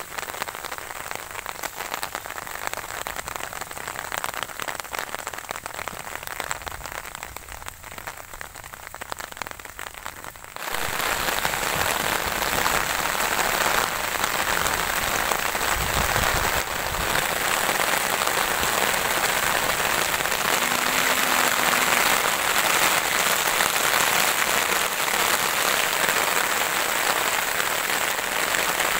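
Steady rain falling, drops pattering on leaves. About ten seconds in it abruptly becomes louder and fuller.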